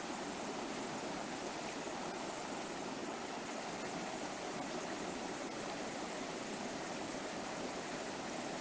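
River water flowing over rocks, a steady, even rush.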